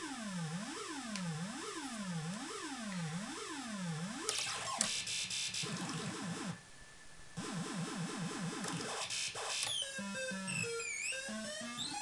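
Modular synthesizer voiced by a DIY doorbell-kit sound module, heard through a camera microphone. A pitch sweeps up and down a little faster than once a second for the first few seconds, then turns into a harsh, dense buzzing chatter that briefly drops away past the middle, and near the end breaks into a stepped run of short tones and quick pitch slides.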